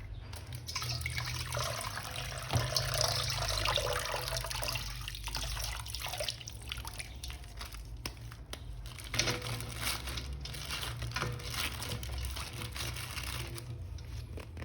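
Water running and splashing, as from a tap, while a plastic toy figure is rinsed and rubbed, with scattered small clicks of handling.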